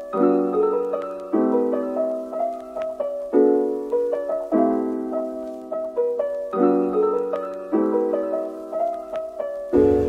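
Background music: piano playing a tune of struck notes that fade, a new chord about once a second.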